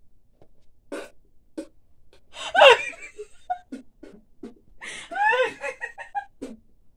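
Women laughing: a few short bursts, then two longer laughs with a wavering pitch, about two and a half and five seconds in, the first the loudest.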